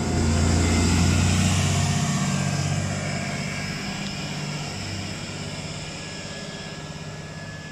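Wright Pulsar Gemini double-decker bus on a VDL chassis pulling away past the camera, its engine loud at first and fading steadily as the bus drives off, with the rough, raspy note of a blown exhaust.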